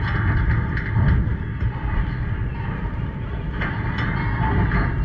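Wind buffeting an outdoor microphone, an uneven low rumble that runs steadily under a fainter haze of background noise.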